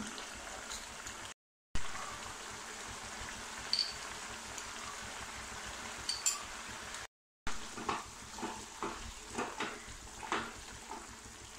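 Thick tomato-onion masala gravy simmering and sizzling in a non-stick kadai, with a wooden spatula stirring it. In the second half the spatula knocks and scrapes against the pan several times.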